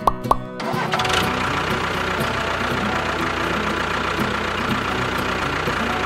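A motor or engine running steadily at a constant level, starting just under a second in as a few plucked music notes end.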